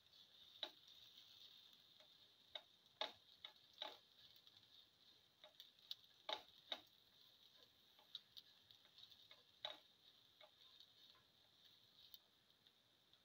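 A spatula clicking and scraping against the pan at irregular moments while stirring sautéing sliced onions, over a faint steady hiss of frying.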